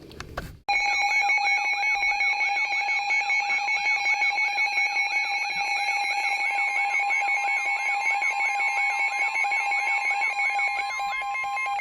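Emergency weather alert tone from a weather radio: a steady electronic tone with a rapid warble repeating about three times a second. It signals an incoming severe thunderstorm warning.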